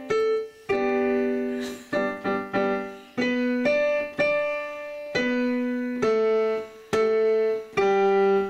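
Digital piano played one note at a time: a slow, simple melody of about a dozen separate notes, each fading before the next is struck.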